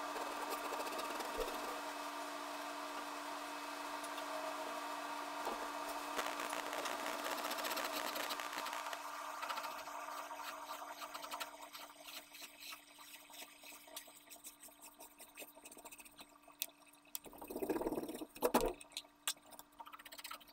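A steady machine-like hum fades away a little past the middle. After it come faint light scratches of a pencil drawing on paper, and a brief louder rustle near the end.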